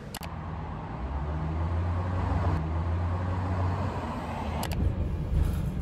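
Road traffic: the low engine rumble and road noise of a motor vehicle, swelling about a second in and easing off near the end.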